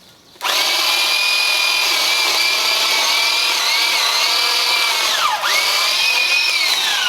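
Bauer 20V cordless pole saw's electric motor and chain running with a high whine that starts about half a second in. The pitch sags a few times as the chain bites into branch wood, drops sharply once and recovers, then falls away as the saw winds down at the end.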